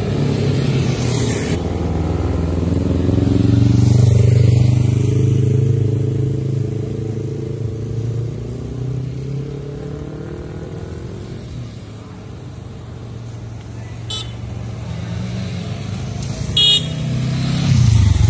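Motorcycles and cars passing at low speed, their engine note swelling and fading as they go by. There is a short horn beep near the end.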